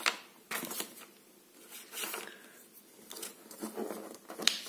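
Folded paper instruction leaflet rustling and crinkling in several short, irregular bursts as it is unfolded and handled.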